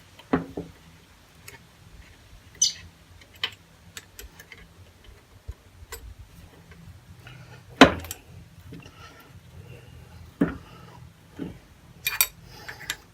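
Irregular knocks and clinks of tools and metal parts being handled, a dozen or so separate hits, the loudest about eight seconds in. A faint low hum sits underneath.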